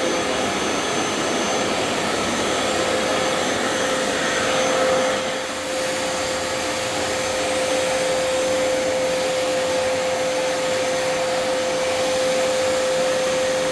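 Wet-and-dry vacuum cleaner running at full speed with a steady motor whine and rushing air, sucking water off a wet floor.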